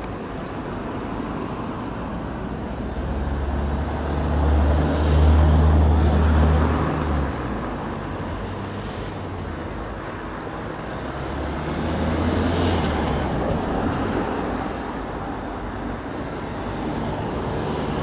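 Road traffic with motor vehicles passing: a low engine hum with tyre noise swells to a peak about five seconds in, and a second, weaker pass follows about twelve seconds in, over a steady traffic background.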